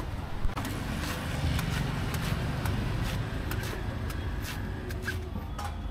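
A knife cutting and shaving the husk of a young coconut: a string of irregular sharp cuts, with one louder chop about half a second in. Under it runs a steady low rumble of street traffic.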